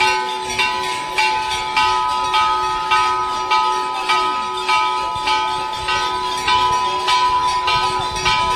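A temple bell rung over and over, just under two strokes a second, each stroke ringing on in steady tones; about seven seconds in the strokes come quicker for a moment.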